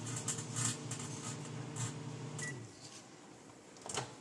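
Microwave oven running with a steady low hum while two touching raw carrot pieces inside arc, giving irregular crackles and snaps. A short beep comes about two and a half seconds in and the hum stops, then a single click near the end.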